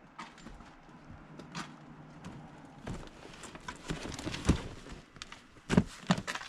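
Irregular clicks and knocks, more frequent in the second half, with two loud thumps near the end.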